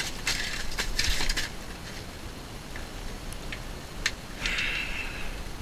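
Fishing reel being cranked, its mechanism giving quick ratcheting clicks in the first second and a half, then single ticks, with a short rush of noise about four and a half seconds in as the fish comes up to the hole.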